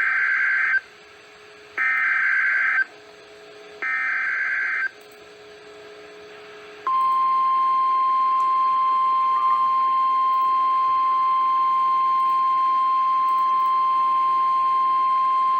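NOAA Weather Radio Emergency Alert System tones. Three bursts of SAME digital header data, each a harsh warbling screech of about a second with a second's gap between them, are followed from about seven seconds in by the steady warning alarm tone. Together they mark the start of a new tornado warning.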